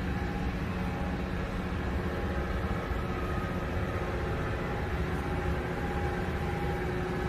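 Steady hum and rush of a large exhibition hall's ventilation, with a few faint steady tones over it.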